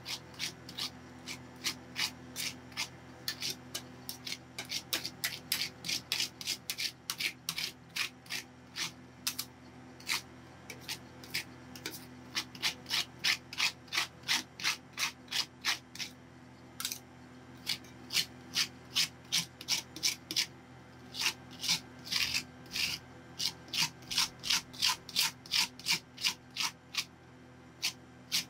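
Metal spatulas scraping across the frozen steel plate of a rolled-ice-cream machine in quick, repeated strokes, about two to three a second, with a short pause about two-thirds of the way in. A steady low hum from the cold-plate machine runs underneath.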